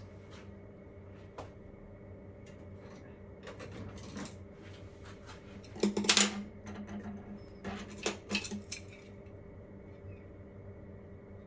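Kitchen utensils clinking and knocking against cookware: scattered light clicks, with a louder clatter about six seconds in and another about eight seconds in, over a steady low hum.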